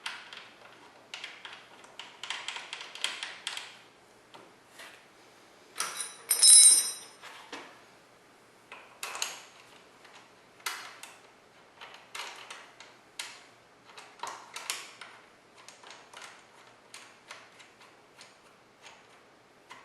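Hand tools and metal parts clicking and clinking while the front brake caliper's bolts are refitted, in uneven clusters of sharp clicks. A louder ringing metal clink comes about six seconds in, then single clicks about once a second.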